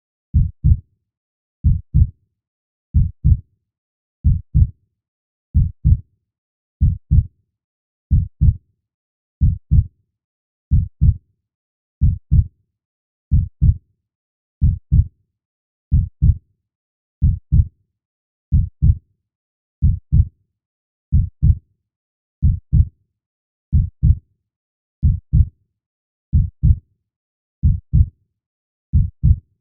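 Slow, steady heartbeat: low double thumps (lub-dub) about every 1.3 seconds, roughly 46 beats a minute, with silence between beats.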